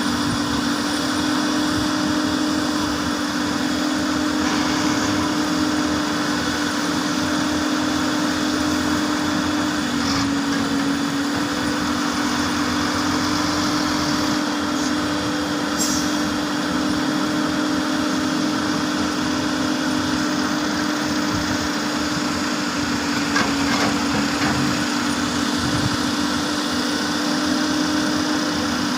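Hyundai 330LC excavator's diesel engine running steadily, with a constant low hum.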